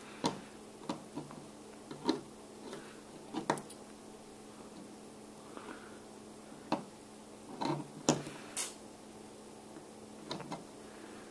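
Small steel construction-kit robot, made of bolted metal strips, clicking and tapping as it is handled and set on a table to stand up. The light clicks and knocks are irregular, about a dozen in all, with a small cluster around 8 seconds in.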